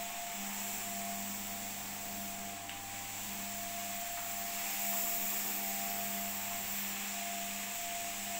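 Single-disc rotary floor scrubbing machine running on wet marble: a steady motor hum with a held whine, over an even hiss from the scrubbing pad.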